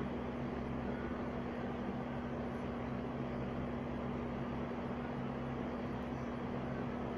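Steady machine hum over an even hiss, unchanging throughout, with a low tone standing out.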